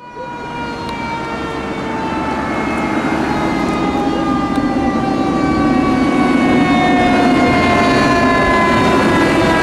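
Fire engine siren wailing with a slowly falling pitch, growing steadily louder as the apparatus approaches.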